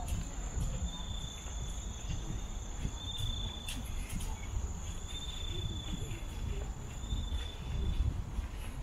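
Insects calling: a steady high-pitched buzz that stops near the end, with a lower trill repeating about every second and a half, over a low rumble.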